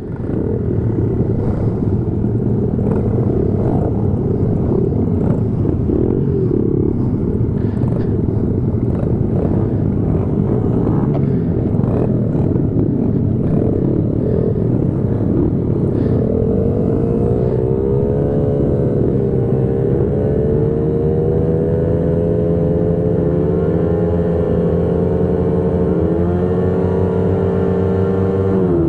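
Several mini motorcycles running on a starting grid, with the nearest bike's engine revved up and down again and again from about halfway through, held ready for the race start.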